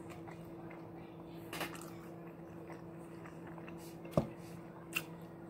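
Quiet close-up eating sounds: chewing, with a few short sharp clicks as fries are picked from a foil tray, the loudest about four seconds in. A steady low hum runs underneath.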